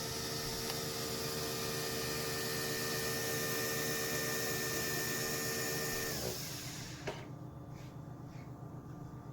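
Small electric appliance motor whirring steadily, then winding down about six seconds in, followed by a single click.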